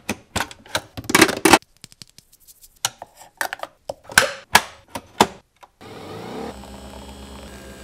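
Handling clicks and clacks of a Nespresso Vertuo capsule coffee machine: the lid lever snapping open, a capsule dropped into the holder, and the lid pressed shut. A steady, quieter hum starts about six seconds in.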